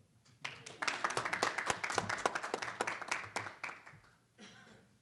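A small audience clapping, starting about half a second in and dying away near the end.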